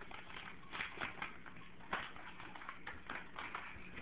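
Paper crinkling and rustling in irregular short bursts as a pug puppy tugs at and chews a sheet of paper.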